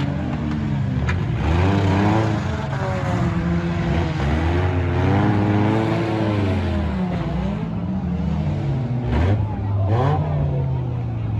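Several demolition derby compact cars' engines revving up and down as they ram and push each other, with a few sharp metal crashes of cars hitting.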